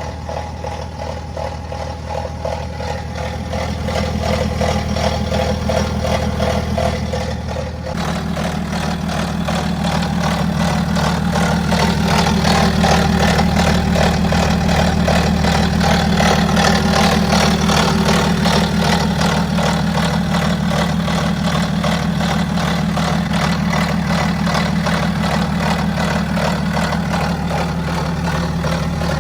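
BMW X5 F15 N57 diesel engine idling with a fast, even metallic rattle over the diesel running, the sign of a suspected worn, stretched timing chain. The sound changes abruptly about eight seconds in, as if heard from a different spot.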